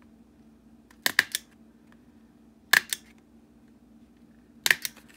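Tiny Attacher mini stapler driving staples through layered watercolour paper: three sharp clacks spaced a second and a half to two seconds apart, the first and last each made of a few quick clicks.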